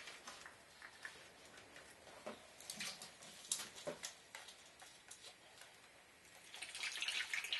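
Small clicks and knocks of a plastic bottle being handled and its cap unscrewed, then, about six and a half seconds in, liquid photographic developer starting to pour into the camera with a steady splashing hiss.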